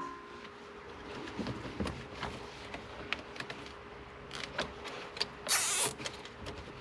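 Light clicks and knocks of hands and tools working on parts inside a car, over a faint steady hum, with a short rustling rush about five and a half seconds in.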